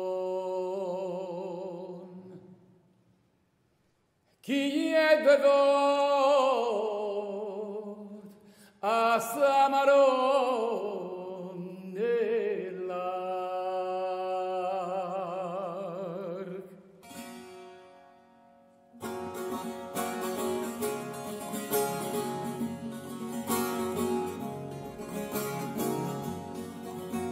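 A tenor voice sings slow, free phrases with wide vibrato and no accompaniment, with a brief pause after a held note. About two-thirds of the way in, strummed guitar chords and other plucked strings start up the brisk tarantella accompaniment.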